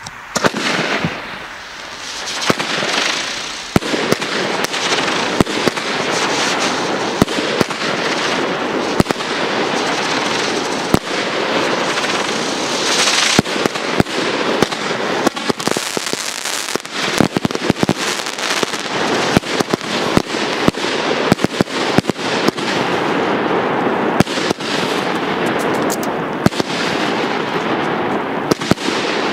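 A 49-shot firework cake (Flowerbed) firing, its shots going off in quick succession: many sharp reports over a continuous hiss that starts suddenly as the cake ignites.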